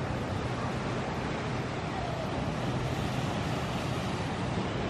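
Steady wash of ocean surf and wind, with a faint steady low hum underneath.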